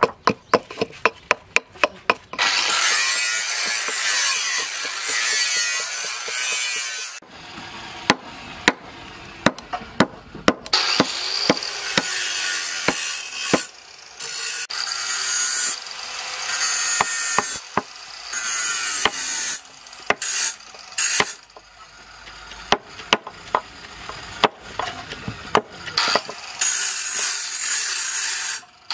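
Knife blade carving a wooden handle against a wooden plank: runs of sharp knocks from chopping strokes, alternating with long rasping shaving strokes that each last a few seconds.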